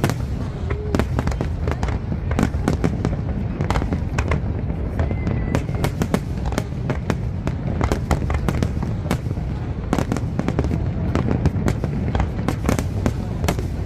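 Aerial fireworks going off in rapid succession: a dense stream of sharp bangs and crackles over a steady low rumble.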